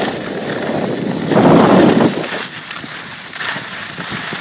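Skis sliding over packed snow as the filmer skis downhill, a rushing noise that swells loudest for under a second about a second and a half in.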